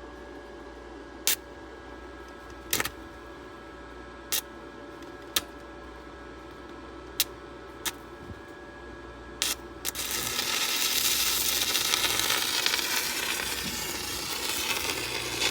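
Stick welding arc with a 6011 electrode: a handful of sharp, separate clicks, then about five and a half seconds of loud, steady crackling and sizzling that cuts off suddenly as the arc is broken.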